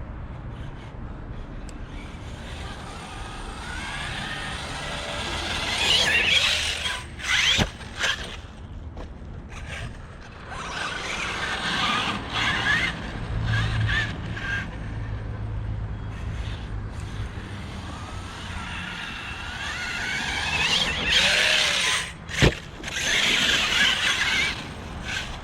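Brushless motor and drivetrain of a Traxxas T-Maxx RC truck running on 6S, whining in bursts of throttle with the pitch rising as it speeds up, then cutting off. There are two sharp knocks, about 8 seconds in and again near the end.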